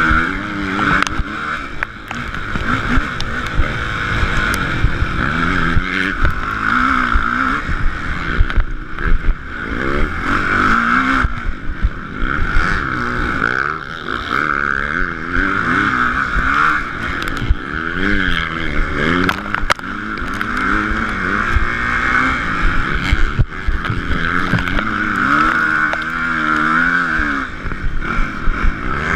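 Motocross bike engine heard close up from a handlebar-mounted camera, revving up and dropping back over and over as the rider accelerates, shifts and brakes around the track. Frequent sharp knocks from the bike over rough ground.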